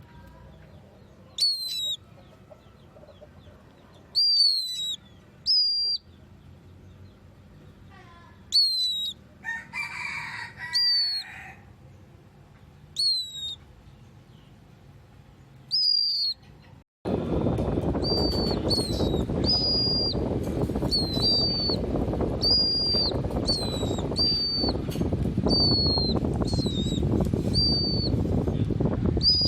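Pet bird calling with short, sharp chirps that drop in pitch, one every second or two. A bit over halfway through, a steady rushing noise starts suddenly and the chirps come faster, about once a second.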